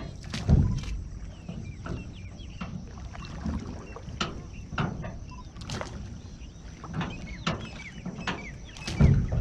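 Oars of a rowing boat dipping and splashing in the lake in a repeated series of short sharp sounds, a little more than one a second, with heavier thumps just after the start and near the end. Many short bird calls sound in the background.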